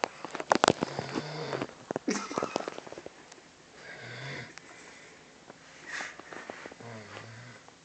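Snoring: slow breaths about three seconds apart, each with a low buzzing rasp. The first two seconds hold a louder flurry of sharp sniffing, rushing noises.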